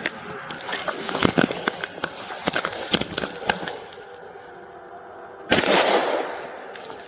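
A string of gunshots, many sharp irregular cracks at uneven spacing over the first three or four seconds, picked up on a police car or body microphone during a shootout. About five and a half seconds in comes a loud burst of hiss lasting about a second.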